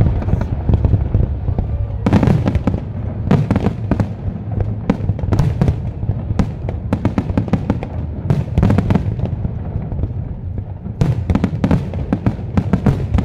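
Aerial fireworks display: shells bursting in repeated volleys of bangs and crackles over a steady low rumble, with the densest rapid run of bangs near the end.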